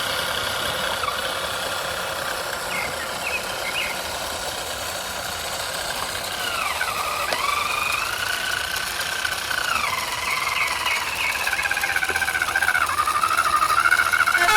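Electric motors of radio-controlled model trucks whining, the pitch dipping and rising again about halfway through, then wavering up and down near the end as the models drive and manoeuvre.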